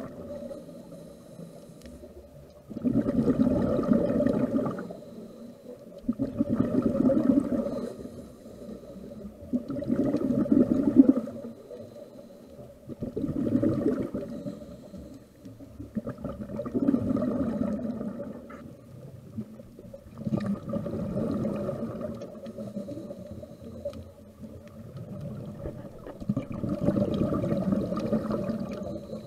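Underwater scuba breathing: the exhaled air bubbles out of a diver's regulator in rumbling bursts of a second or two, about every three to four seconds, with quieter inhalations between. A faint steady hum runs underneath.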